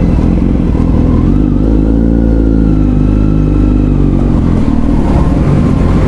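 Kawasaki Z900's inline-four engine running at low revs as the motorcycle rolls slowly, its pitch rising a little and easing back down over a few seconds.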